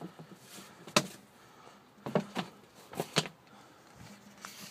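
A rolled playmat being worked out of a mailing tube: several sharp knocks and taps, about a second in and then two pairs a little later, with sliding, rustling scrapes in between and near the end.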